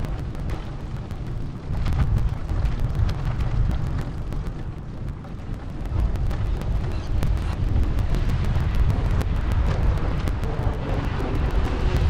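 Wind buffeting the microphone of a camera on a moving bicycle: a dense, steady low rumble. A faint falling hum comes in near the end.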